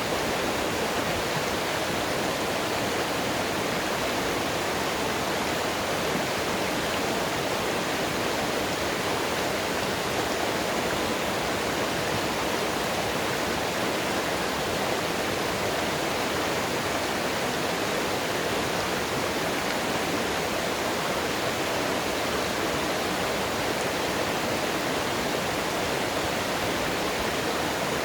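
Mountain water rushing over rocks in a steady, unbroken roar of flowing water.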